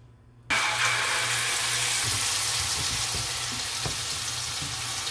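Blended sofrito paste sizzling in hot olive oil in a pan, starting suddenly about half a second in and slowly easing off, with a few light knocks of a spatula stirring it.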